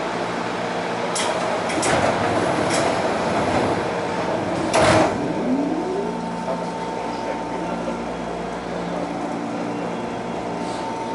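Seibu Railway electric commuter train pulling into a station platform, its wheels clicking over rail joints and points, with one loud clack about five seconds in.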